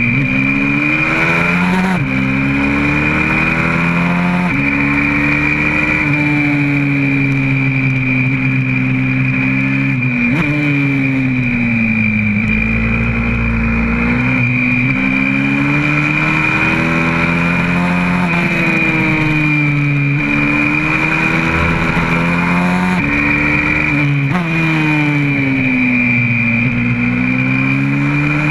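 Single-cylinder four-stroke engine of a YCF 125cc pit bike heard on board under hard riding. It revs up and down through the gears, its pitch climbing and dropping sharply at each shift, and falls away as the bike slows for corners. A steady high whine runs over it throughout.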